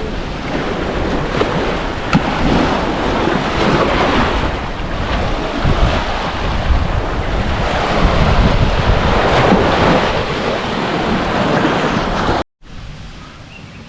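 Wind buffeting the microphone over the wash of surf on the shore, rising and falling in slow swells. It cuts off sharply near the end, leaving a much quieter hiss.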